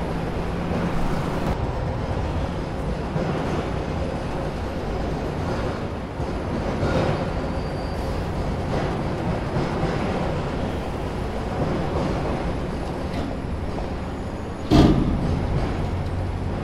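Steady, dense mechanical rumble like a passing rail vehicle, with one sharp loud bang near the end.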